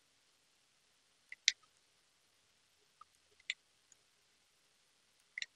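A few sharp computer mouse clicks a second or two apart, some in quick pairs, against faint background hiss.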